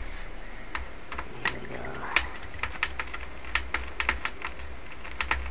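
A screwdriver working small screws out of a Toshiba Satellite L455 laptop's plastic top cover: a dozen or so light, sharp clicks and ticks of metal on plastic at uneven intervals.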